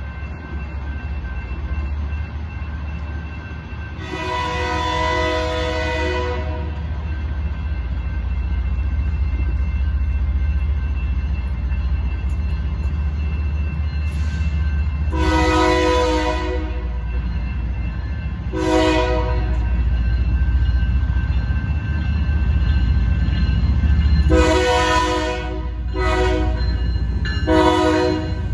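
Grade-crossing electronic bells ringing steadily while an approaching BNSF diesel freight locomotive sounds its multi-note horn for the crossing. There is a long blast about four seconds in, another long blast then a short one in the middle, and a long blast followed by quick short blasts near the end. Under it all, the locomotive's low rumble grows as it reaches the crossing.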